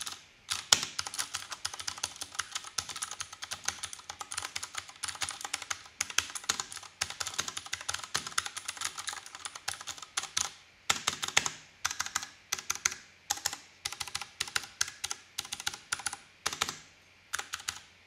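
Typing on a Vortex Race 3 mechanical keyboard as a sound test: a fast, steady stream of keystrokes that breaks after about ten seconds into shorter bursts with brief pauses.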